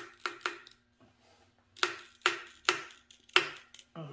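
Sharp metallic knocks and clanks from a breaker bar on a 19 mm socket being jerked against a stuck Honda crankshaft pulley bolt. The bolt does not break loose. There are three lighter knocks at first, then four louder ones about half a second apart.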